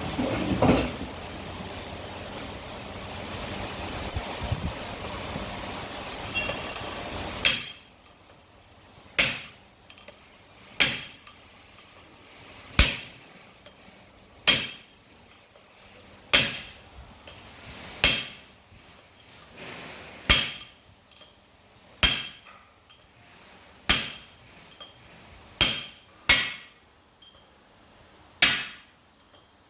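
Hammer blows on metal, driving a bearing home in a Mercedes high-low transfer gearbox. About seven seconds in, the blows begin and come roughly one every two seconds, each with a short metallic ring.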